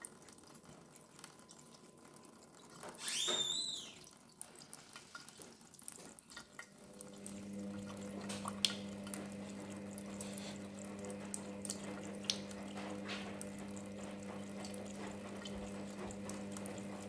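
Cat lapping water, a run of small wet clicks and drips. About three seconds in there is a short high squeak that rises and falls, and from about seven seconds a steady low hum joins in.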